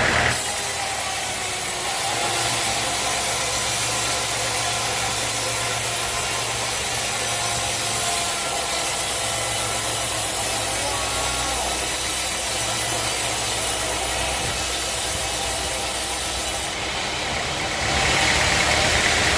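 A sawmill's engine running steadily at an even idle, with a low hum under a wash of mechanical noise.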